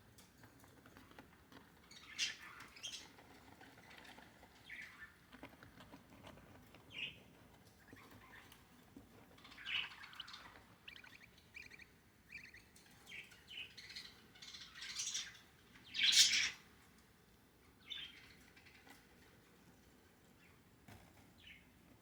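Budgerigars giving short, irregular chirps and squawks, scattered through the stretch with the loudest call about two-thirds of the way through.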